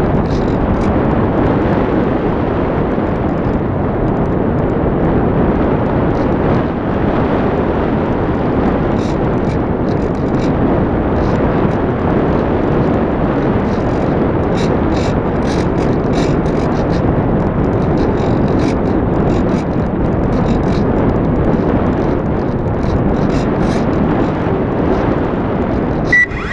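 Steady, loud rush of airflow buffeting the microphone of a camera mounted on a radio-controlled model glider in flight, with faint ticks and rattles through it. A brief high beep sounds near the end.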